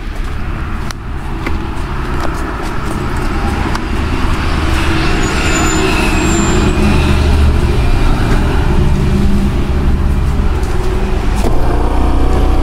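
Steady road-vehicle noise with a heavy low rumble that grows louder. About a second before the end, a steady engine hum joins in, as from a scooter being ridden along a highway.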